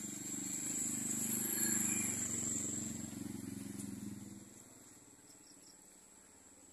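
A low droning engine hum swells and then fades out about four and a half seconds in, over a steady high-pitched insect trill.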